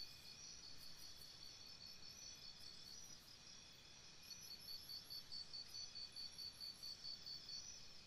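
Jungle morning ambience of insects chirping: a high, evenly pulsed chirping at about three pulses a second, loudest in the second half, over a faint steady hiss.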